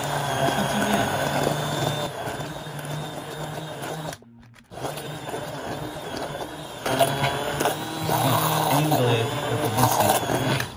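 Cuisinart stick blender's motor running with its head down in a pot of hot strawberries, puréeing them into a froth. It stops briefly about four seconds in, then runs again, louder and churning harder over the second half.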